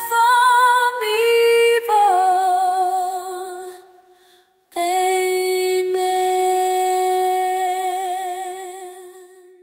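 A woman's voice singing slow, sustained notes with vibrato, unaccompanied. A phrase fades out about four seconds in, then a new note starts and is held, fading near the end.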